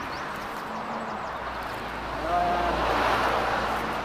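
A motor vehicle passing on the street: a low rumble builds about a second in and is loudest a little past the middle, with a brief whine over it, against steady outdoor street noise.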